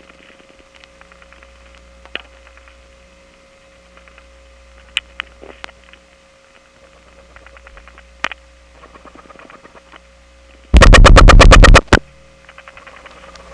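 Telephone line in a number one step-by-step office: steady dial-tone hum and whine from a selector's unbalanced power, with faint clicks of dial pulse crosstalk. About eleven seconds in comes a loud, rapid burst of dial pulses lasting about a second, and the background changes after it.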